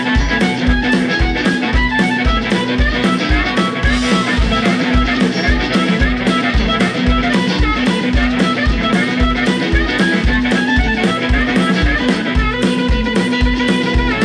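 Live blues-rock band playing: a harmonica blown into the vocal microphone over electric guitar and a drum kit keeping a steady pulse of about three beats a second.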